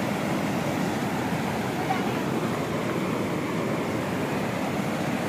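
Swollen, muddy mountain river in spate rushing steadily, its floodwater churning around a gabion stone wall.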